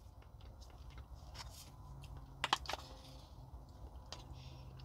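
Soft eating sounds: a spoon clicking lightly and small mouth noises as a mouthful is taken, with two sharp clicks close together about halfway through, over a faint steady low hum.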